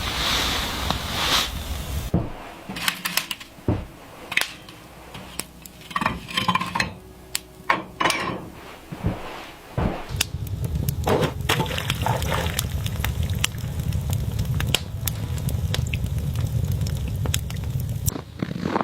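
Scattered sharp knocks and clinks, like hard objects being handled, over a steady low rumble that drops away about two seconds in and returns about ten seconds in.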